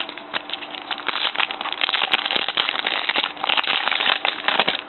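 Trading-card pack packaging being torn open and crinkled: a dense, irregular crackling that grows busier through the middle and eases off near the end.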